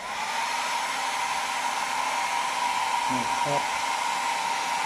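Philips BHC010 hair dryer switched to its second setting: right at the start the motor's whine steps slightly up in pitch and the blowing gets louder, then it runs steadily as a high whine over the rush of air.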